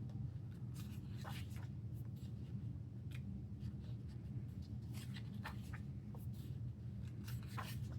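Paper rustling and soft taps as the thin pages of an album photo book are handled and turned, a few short rustles spread through, over a steady low background hum.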